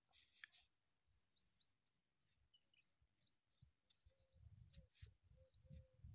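Near silence, with faint, short high chirps of small birds repeating many times in the background.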